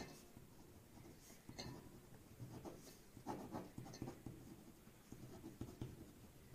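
Pen writing on paper: faint, irregular scratching strokes of the tip across the sheet.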